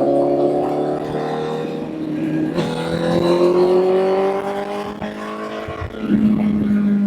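Honda CBR1000 inline-four engine pulling under acceleration, its pitch climbing steadily through the gear. The pitch drops with an upshift about two and a half seconds in, climbs again, and changes once more near the end.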